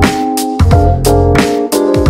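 Background jazz music with a steady beat, bass and chords.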